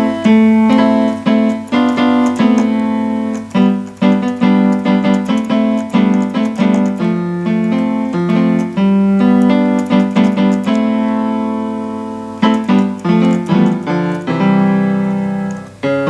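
Yamaha PSR-E423 digital keyboard playing its default grand piano voice through its built-in speakers: a series of struck notes and chords, each decaying, with a short pause about ten seconds in.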